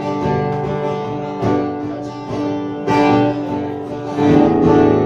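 Acoustic guitar strumming chords, with a new chord struck about every second and a half and ringing on between them.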